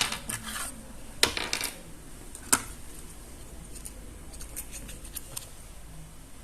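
Small hard plastic pieces clicking and clattering as they are handled, with three sharper knocks in the first few seconds and lighter ticks after.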